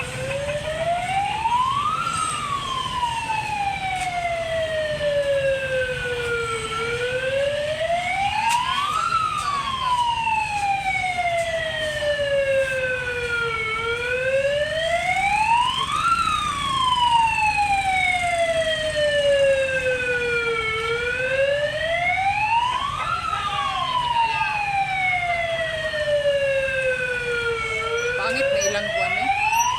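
Vehicle siren wailing in a slow, repeating cycle: the pitch rises over about two seconds, then falls gradually over about five, about every seven seconds, over a steady low rumble.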